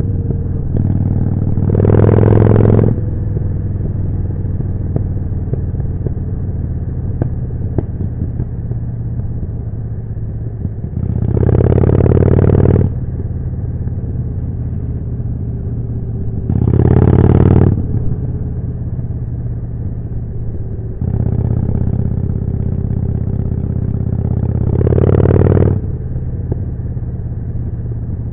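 Harley-Davidson Forty-Eight's air-cooled V-twin running through a Jekill & Hyde exhaust while riding, surging louder four times as the throttle is opened, the last surge lasting about five seconds.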